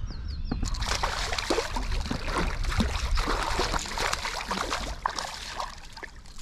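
A hooked pike thrashing at the surface beside the boat: a continuous mess of splashing and slapping water that starts about a second in and eases a little near the end.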